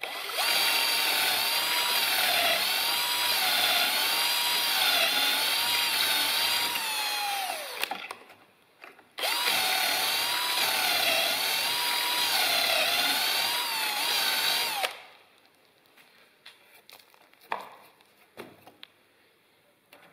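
Ozito cordless drill boring pocket holes in plywood with a stepped bit through a Kreg pocket-hole jig. The motor whines in two long runs, its pitch wavering up and down, with a short pause between them. A few light knocks follow near the end.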